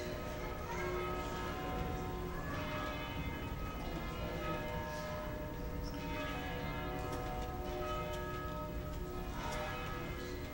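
Church bells ringing, a new stroke every second or two with each one ringing on into the next.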